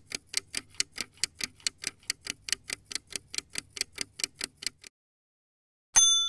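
Clock ticking fast and evenly, about five ticks a second, then stopping abruptly about five seconds in. After a second of silence, a sudden ringing ding starts near the end.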